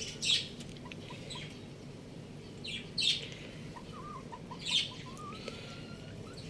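Birds chirping: three short, high chirps a couple of seconds apart, with faint lower peeping notes between them.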